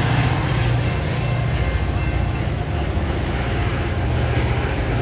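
A train passing close by: a loud, steady rumble with the clatter of wheels on rails.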